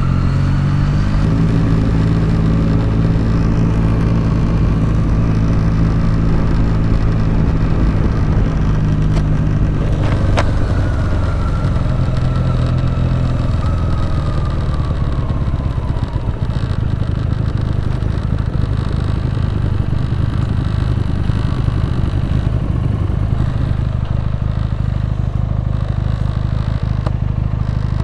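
Benelli TNT 300 parallel-twin engine running while riding at a steady pace, with road noise; the engine note changes about ten seconds in, near a single sharp knock.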